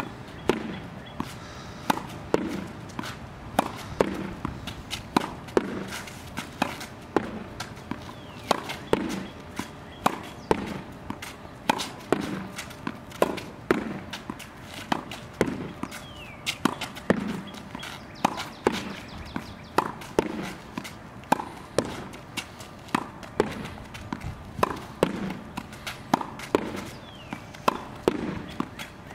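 Tennis ball rallied against a backboard: repeated racket strikes, the ball bouncing on concrete and rebounding off the board. The sharp hits come in a steady rhythm of about one a second, with softer bounces between.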